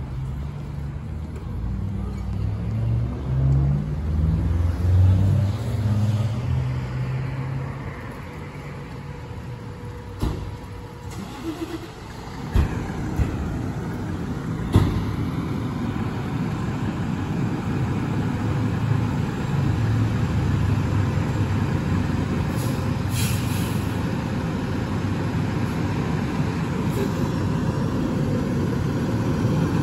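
Fire engine's diesel engine running in the station bay and pulling out, its rumble growing steadily louder in the second half. There are a few sharp knocks partway through and a brief hiss later on.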